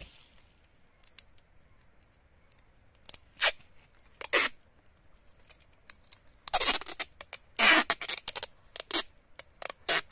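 Clear packing tape being pulled off its roll in screechy, tearing pulls, wrapped around a graft to hold the cling film in place. A few short pulls come a few seconds in, then longer, quicker ones from about the middle on.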